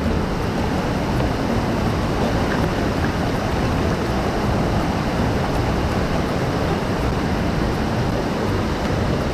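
Steady, unbroken rush of falling or running water, loud and even, with no swells or breaks.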